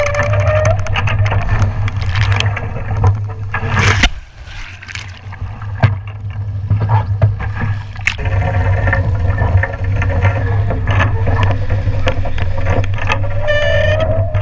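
Strong wind buffeting the microphone over rushing water as a WASZP foiling dinghy sails in high wind, with a pitched whine that rises near the end. The sound cuts abruptly twice, about four and eight seconds in, with a quieter hissing stretch between.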